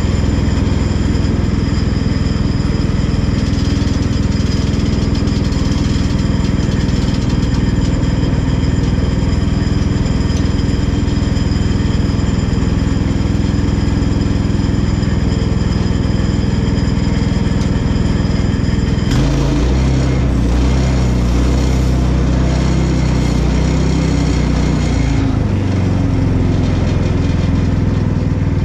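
Woodland Mills portable bandsaw mill running steadily with its gas engine and band blade. About two-thirds through, the sound turns heavier and deeper as the blade starts cutting into a small cherry log.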